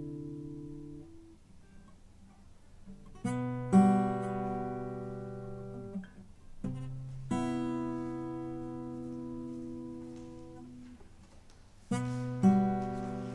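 Background music on acoustic guitar: slow chords struck in pairs about half a second apart and left to ring out and fade, with a near-quiet pause about a second in.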